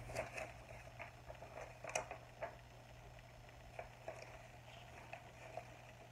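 Paper sheets rustling and crinkling as they are handled and unfolded: a string of short crackles, loudest about two seconds in and sparser later, over a steady low hum.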